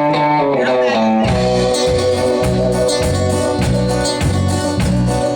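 Live country band music: a held guitar chord with a sliding note, then about a second in the drums and bass come in with a steady beat.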